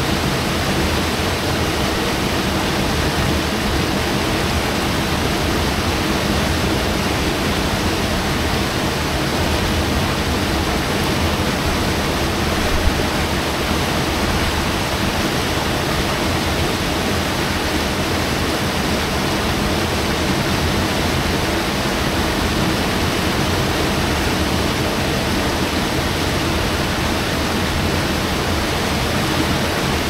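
Whitewater rapids of a mountain river rushing steadily through a channel of smooth rock, an even, unbroken wash of water noise.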